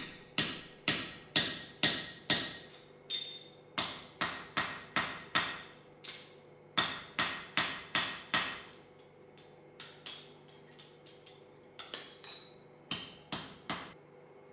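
Blacksmith's hand hammer striking hot spring steel on an anvil, about two blows a second in runs of several strikes with short pauses, each blow ringing. Lighter taps follow, then three final blows before the hammer is set down.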